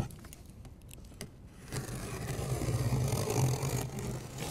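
Knife blade slicing along packing tape on a cardboard box: a few small clicks, then a steady scraping rip from a little under two seconds in that stops near the end.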